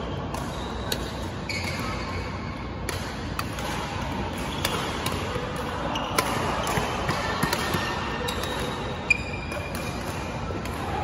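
Badminton rally: sharp cracks of rackets striking the shuttlecock every second or so, the loudest about nine seconds in, with short squeaks of court shoes on the floor over the hum of a large hall.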